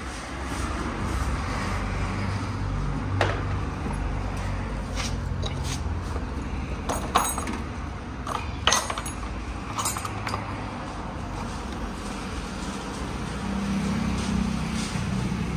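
Hand tools clinking and tapping against metal parts of a car's front end as they are unfastened, a handful of sharp clinks, loudest about 3, 7 and 9 seconds in, over a low steady rumble.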